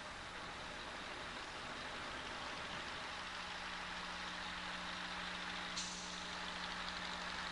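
Delivery truck running while its truck-mounted boom crane hoists a pallet of concrete blocks. A steady hum comes in about three seconds in, and there is a short hiss near six seconds.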